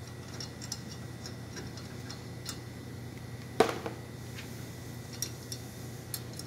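Light metallic clicks and taps from handling a furnace gas valve and manifold assembly, with one louder knock about three and a half seconds in, over a steady low hum.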